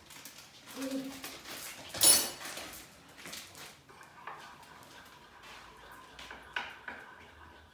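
Kitchen utensils and a bowl clinking and knocking while butter and icing mix are handled, with one sharp loud knock about two seconds in. A faint steady high hum starts about four seconds in.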